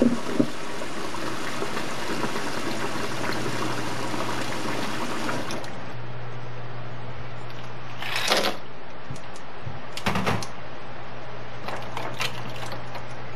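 Tap water running into a metal bowl of somen noodles in a stainless steel sink, cutting off about six seconds in. Then three short clattering splashes as ice cubes go into the bowl and a hand works them through the noodles, over a steady low hum.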